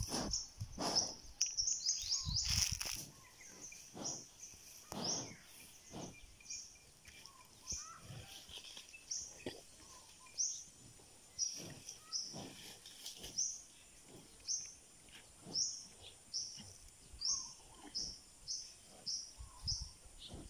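A bird chirping over and over in short, high notes, about one a second, coming faster near the end. In the first three seconds there are a few louder puffs and rustles close to the microphone.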